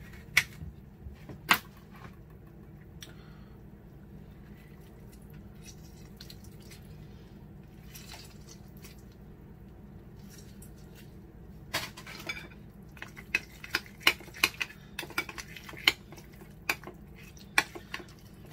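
A metal fork stirring tuna salad in a ceramic bowl, clinking and scraping against the bowl in a quick irregular run over the last six seconds or so. Near the start, a knife cutting a lemon gives two sharp knocks on the board.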